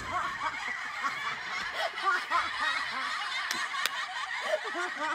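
Many people laughing together in a dense, continuous wash of chuckles and snickers, like a laugh track.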